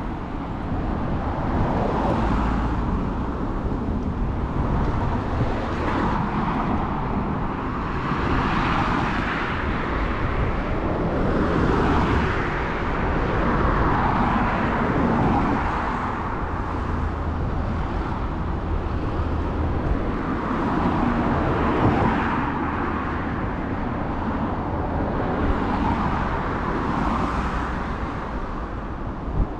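Road traffic at an intersection: cars passing one after another, each rising and fading, over a constant low rumble.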